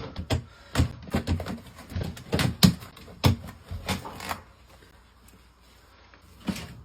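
Irregular knocks and clatter of cleaning rods and the retrieval tool being worked inside a dryer vent duct, about ten in quick succession, then a pause and one last knock.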